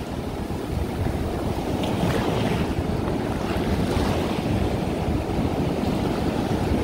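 Ocean surf washing in the shallows, a steady rushing wash with wind buffeting the microphone.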